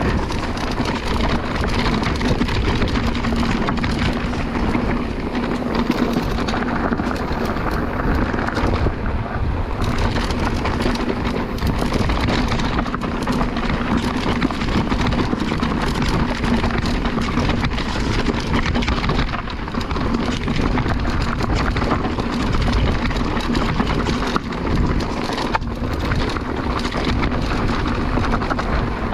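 Mountain bike riding down a rough trail: a continuous crunch and rattle of tyres over loose stones and dirt, with the bike's frame and parts clattering, under a steady low hum.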